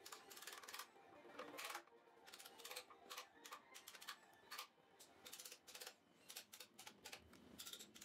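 Faint, irregular scratching and clicking of a screwdriver tip scraping grime from around the hub and bolts inside a Greaves diesel engine's fan housing.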